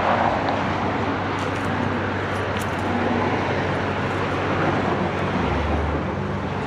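Steady vehicle noise: an even rushing sound over a low, constant engine hum.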